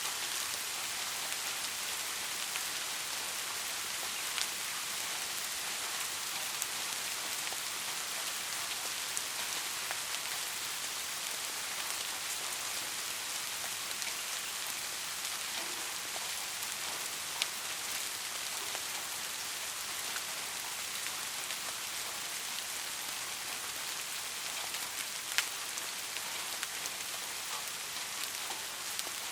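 Steady rain falling, a dense even hiss with occasional sharper individual drop hits.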